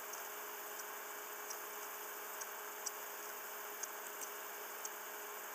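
Steady microphone hiss with a faint electrical hum, broken by a few faint, short clicks scattered through.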